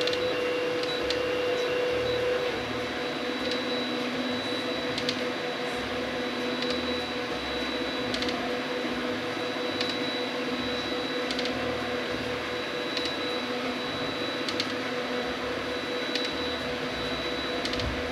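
3D printer's stepper motors whining steadily as the machine moves, the tone dropping to a lower pitch a couple of seconds in, with a faint click about every second and a half.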